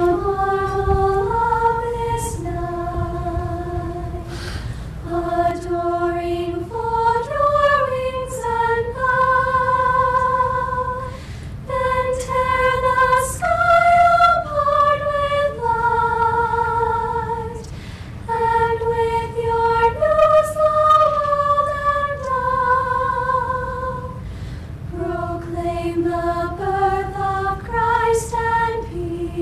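High school choir singing a cappella, a slow melody of long held notes that step from pitch to pitch.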